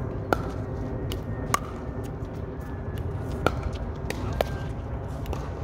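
Pickleball rally: paddles striking the plastic ball in four sharp pops, irregularly spaced about one to two seconds apart, with fainter taps between them.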